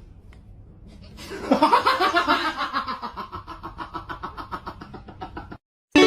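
A person laughing hard. The laughter bursts out about a second in, then runs on as a long string of quick, even laughs that slowly fade and cut off near the end.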